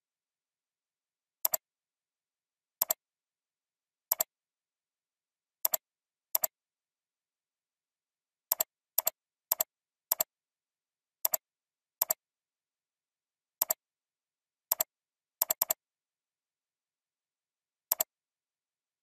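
Computer mouse clicks, about fifteen at irregular intervals, each a quick pair of ticks from the button going down and coming up, with a close cluster of three about two-thirds of the way in and dead silence between them.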